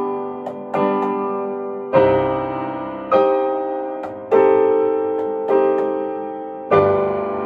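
Solo piano playing a slow, quiet melody in full chords, one struck about every second, six in all, each ringing out and fading before the next. The chords are voiced to imitate the tolling of holy bells.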